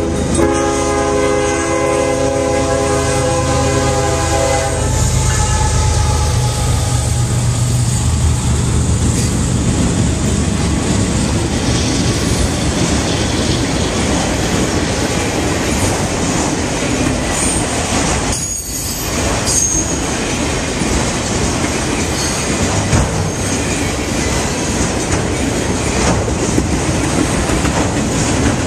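Canadian Pacific freight train passing: the locomotive's multi-note air horn sounds and cuts off about five seconds in, the diesel rumbles past, then the freight cars roll by with steady clickety-clack and a brief high wheel squeal about two-thirds through.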